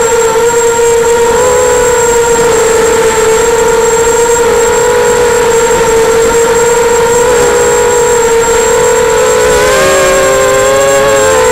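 Electric motors and propellers of an FPV drone whining steadily at one pitch, heard loud and close from the onboard camera over a rush of air noise. About ten seconds in the whine splits into several tones that drift apart as the motors change speed in a turn.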